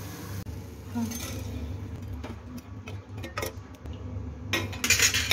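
A metal utensil knocking and scraping against an aluminium pan while jalebis are fried and moved into sugar syrup: a few light clinks, then a louder clatter near the end, over a steady low hum.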